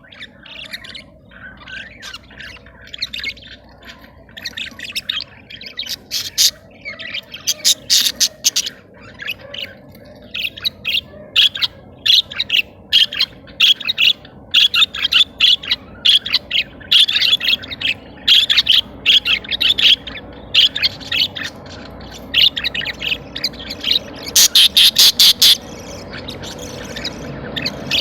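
Budgerigars chattering and chirping in a continuous busy stream. Runs of loud, sharp chirps come about a third of the way in, and the loudest rapid run comes near the end.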